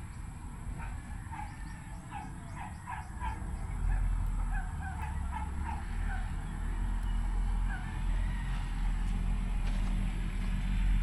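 Poultry calling in short, repeated chirps: a quick run of them in the first few seconds, then scattered, higher calls. Underneath runs a low rumble that swells about four seconds in.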